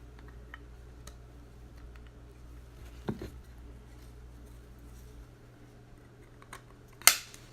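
Small tabletop handling noises from cards and plastic card holders: faint ticks and rustles, a knock about three seconds in, and one sharp, loud click near the end. A low steady hum drops out about two-thirds of the way through.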